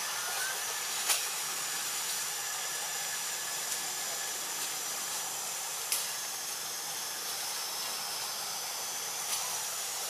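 Steady high-pitched hiss of forest ambience, with three sharp clicks: about a second in, near six seconds, and a little after nine seconds.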